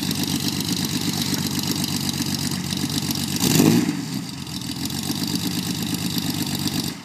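Twin-turbocharged air-cooled flat-six of a 1977 Porsche 911 idling steadily, blipped once about three and a half seconds in, then falling back to idle. The engine sound stops abruptly near the end.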